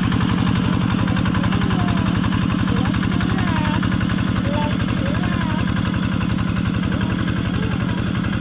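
Single-cylinder diesel engine of a Quick two-wheel walking tractor running steadily under load as it pulls through a muddy paddy, with an even, rapid chugging beat.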